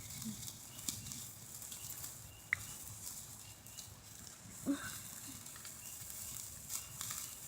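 Quiet outdoor ambience with a few faint clicks and one brief voice-like call about two-thirds of the way through.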